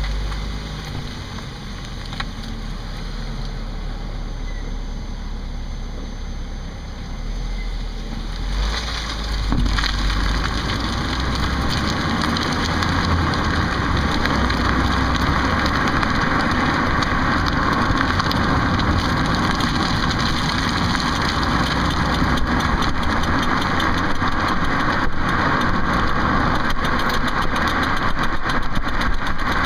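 2008 Ford Focus running, growing louder and fuller about nine seconds in and then holding steady, with faint repeated clicks that the owner traces to a back wheel but cannot pin down.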